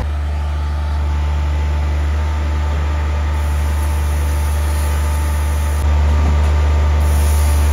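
Small diesel engine of a Shaktiman tree maintenance platform running steadily, powering the hydraulic pump that drives the machine and its wheels. It gets a little louder about six seconds in.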